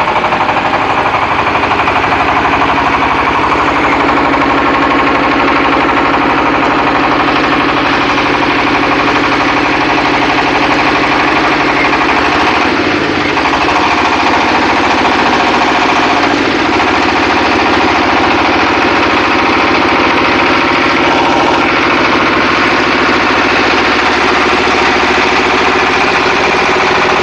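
Engine-driven mobile clay brick extruder running steadily under load, its motor chugging with a fast, even beat while it presses out raw bricks.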